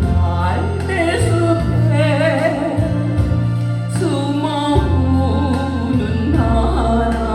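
Korean ballad sung with strong vibrato over a backing track with a steady bass line.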